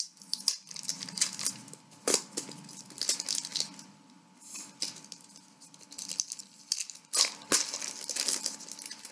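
Plastic crinkling and crackling as the lid and wrapping of a clear plastic LEGO cup full of bricks are worked open by hand, with sharp clicks about two seconds in and again near the end.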